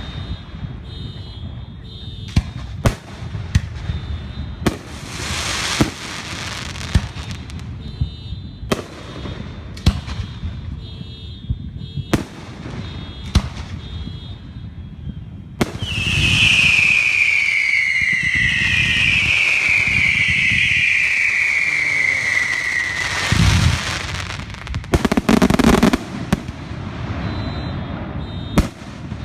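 Fireworks going off, with sharp bangs every second or two. About halfway through comes a long hiss with several falling whistles, and near the end a dense cluster of bangs.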